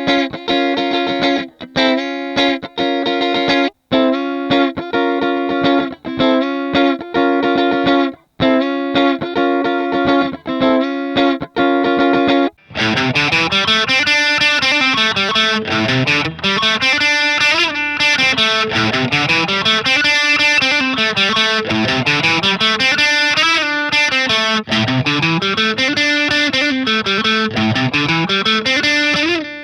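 Harley Benton TE-52 Telecaster-style electric guitar played through an amp. First come chords struck and cut off with short gaps between them. Then, a little before halfway, it changes to a brighter, unbroken riff whose low notes climb and fall in a repeating pattern.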